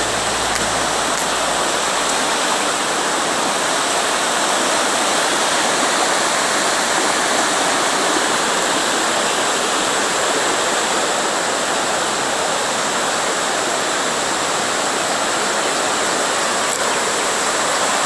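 Rushing water of river rapids and a waterfall: a steady, unbroken rush of white water.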